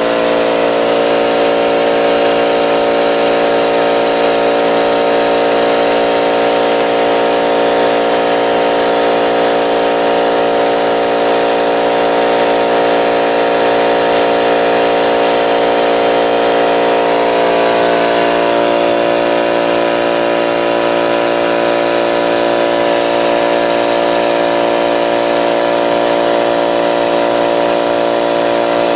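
Central Pneumatic 2.5 HP, 21-gallon, 125 PSI tank air compressor running steadily just after switch-on, pumping up its tank. It is a loud, constant motor-and-pump drone that reads about 80 dB on a sound meter held beside it, and its tone shifts slightly about eighteen seconds in.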